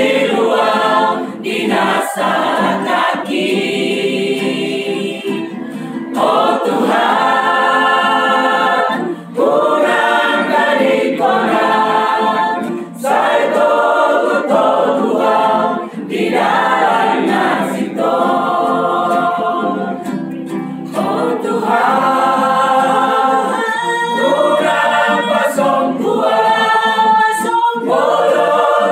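Mixed choir of women and men singing a Christian praise song, in phrases a few seconds long with short breaks between them.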